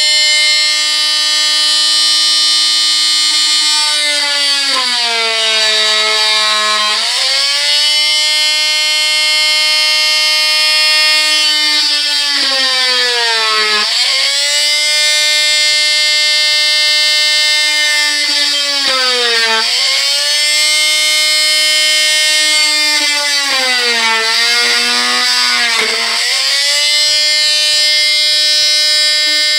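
Small electric plunge-cut saw running with a steady motor whine, its pitch sagging and then recovering several times as the blade is pushed down through the board to cut hinge slots.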